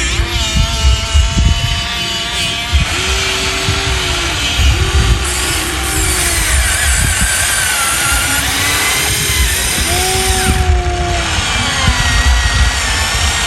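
Huina 1593 RC excavator's small electric motors and gearboxes whining, several pitches at once that bend up and down and start and stop, over a low clattering rattle.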